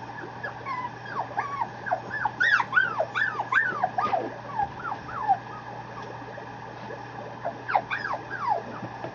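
Mame shiba puppy whimpering: a quick string of short, high-pitched whines, thickest in the first half, with another short run near the end.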